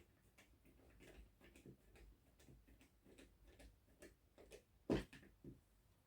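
Faint, irregular clicks and taps of the small plastic parts of an Xbox One S controller being handled during reassembly, with one louder knock about five seconds in and a smaller one just after.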